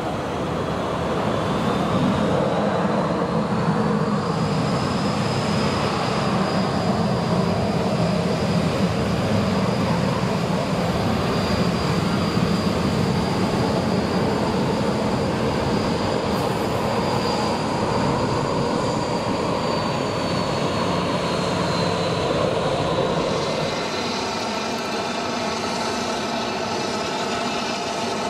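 Boeing 737-800 jet engines (CFM56-7B) running as the airliner taxis: a steady rumble under a high fan whine that rises a few seconds in, holds, and slides down again after about twenty seconds. Near the end the sound changes to a slightly quieter, more distant engine noise.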